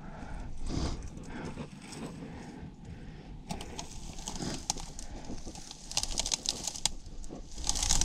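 Dry brush, twigs and dead grass rustling and snapping as someone pushes through them on foot. From about halfway through, sharp crackles come thick and fast.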